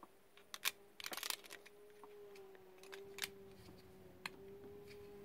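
Faint clicks and a brief rattle as a welding electrode holder clamp and its heavy cable are handled against an inverter welder's casing: a couple of sharp clicks, a short clatter, then two single clicks.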